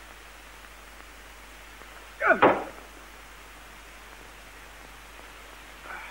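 Steady hiss of an old film soundtrack, broken about two seconds in by one short, loud vocal sound from a man, a brief wordless outburst.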